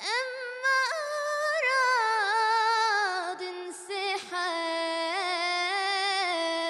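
A girl singing an Arabic ballad solo and unaccompanied. She holds long notes with wavering, ornamented turns in pitch, with a short break about halfway.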